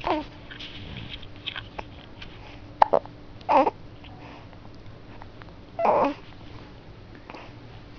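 Baby making short coos and grunts, three brief pitched sounds a few seconds apart, with a sharp hiccup just before the second one; the baby has the hiccups.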